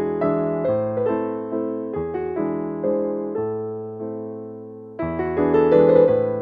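Background piano music: chords and melody notes struck about once a second, each dying away before the next.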